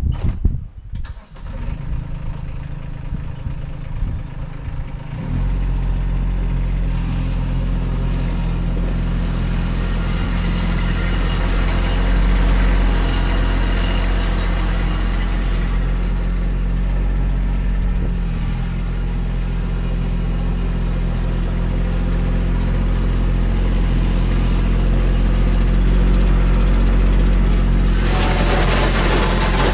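Kubota B2601 compact tractor's three-cylinder diesel engine starting, rough and uneven for about five seconds, then running steadily. Near the end a hiss grows louder over the engine.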